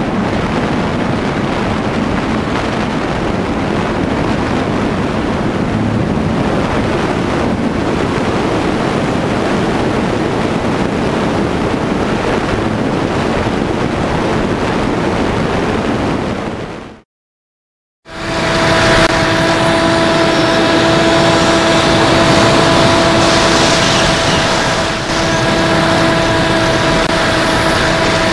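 Onboard sound of an electric fixed-wing FPV model plane in flight: a steady rush of wind over the camera with the motor beneath it. About 17 seconds in the sound cuts out for a second, then another flight starts with the brushless motor and propeller whining at a steady pitch over the wind.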